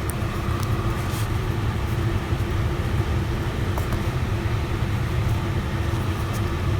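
Steady low mechanical hum with a faint steady tone, broken by a few faint light clicks.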